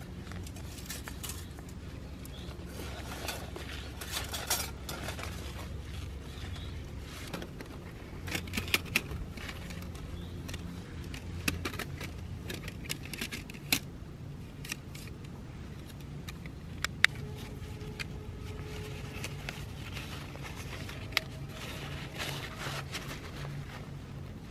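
Small gear being handled: scattered light clicks, clinks and short rustles, the sharpest about 13 and 17 seconds in, over a low steady rumble.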